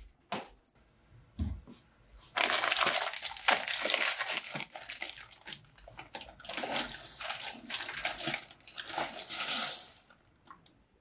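Cooking at a gas stove: food tipped from a jar into a steaming pot. A dense crackling, rustling hiss starts suddenly about two seconds in and lasts about seven seconds.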